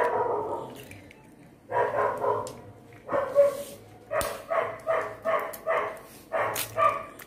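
A dog barks repeatedly in short runs, about three barks a second in the middle stretch. A single sharp knock comes about four seconds in, from an egg being cracked on the rim of a mixer jar.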